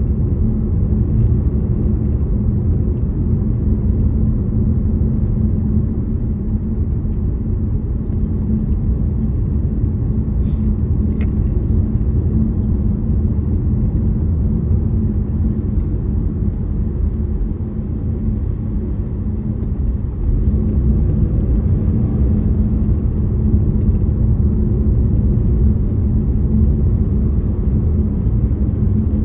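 A car being driven: steady engine and tyre rumble on the road, low and continuous, easing a little past the middle and picking up again about two-thirds of the way through.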